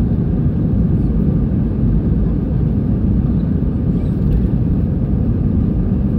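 Jet airliner's engines and wheels giving a steady low rumble inside the cabin as the plane rolls along the ground.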